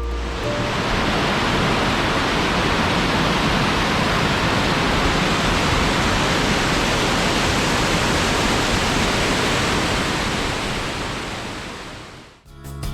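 Waterfall: a steady, even rush of falling water that fades out near the end.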